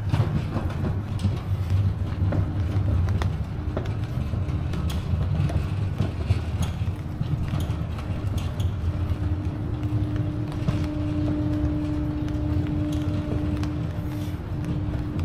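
Train running by: a steady low rumble with a humming tone that grows stronger about nine seconds in and fades near the end.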